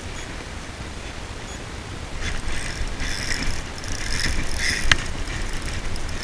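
Spinning fishing reel being cranked, its gears running with a ratcheting, mechanical sound that starts about two seconds in, with a sharp click near the end. Wind rumbles on the microphone underneath.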